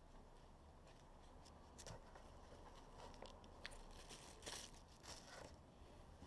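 Faint rustling and crinkling of paper leaflets and packaging being handled, with a few short crisp rustles in the middle, the loudest about four and a half and five seconds in.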